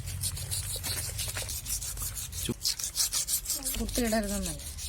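Fast, rhythmic rasping scrapes, several strokes a second, of a snakehead fish being scraped clean to strip its slime and scales.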